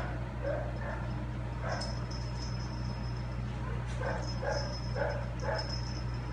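Formosan mountain dog giving short vocal sounds while playing with a kitten: a few scattered in the first couple of seconds, then four about half a second apart near the end.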